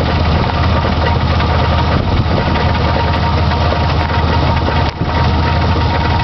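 Chevy S10's 4.3-litre Vortec V6 idling steadily with a rattle from the crankshaft area, which the owner thinks comes from the crankshaft or timing chain.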